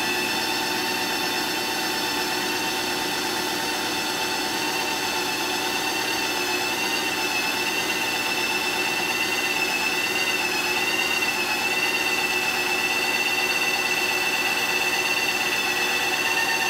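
Ninja Creami ice cream maker running, its blade processing a frozen pint of pineapple: a steady, high-pitched motor whine with a grinding edge. The pitch wavers briefly about two-thirds of the way through.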